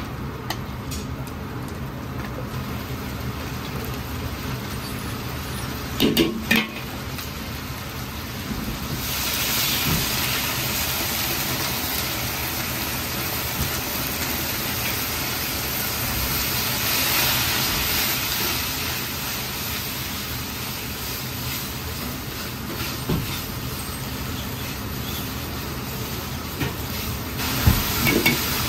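Food sizzling and hissing in a hot wok as leeks and chili bean paste are stir-fried with a ladle. The hiss starts about nine seconds in and drops away near the end, with a few ladle knocks about six seconds in over a steady low hum.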